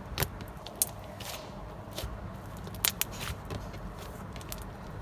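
Slime being squeezed and stretched by hand, giving scattered sharp clicks and pops.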